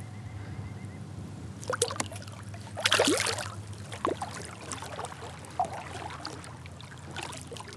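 Kayak paddle strokes in lake water: a few splashes and drips as the blade dips in and lifts out, the loudest about three seconds in.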